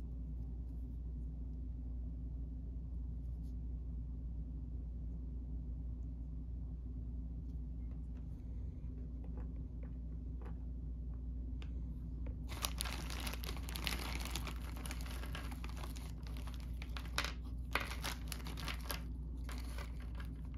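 Plastic bag crinkling and rustling from about halfway through, as small plastic game miniatures are handled and taken out. Before that there are only a few faint clicks of the figures being set on a wooden table, over a steady low hum.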